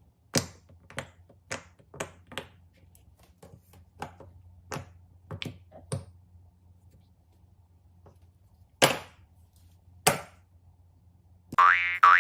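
Irregular sharp clicks and taps of small hard objects being handled, about a dozen in all with pauses between them, over a faint low hum. Near the end a cartoon boing sound effect comes in.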